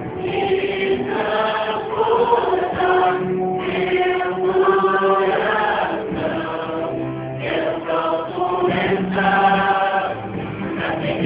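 Christian gospel music with a choir singing over instrumental accompaniment.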